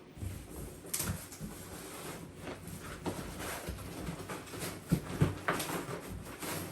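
Rustling and scraping of a cardboard box and its packing as parts are lifted out, with a few dull knocks, the loudest two close together about five seconds in.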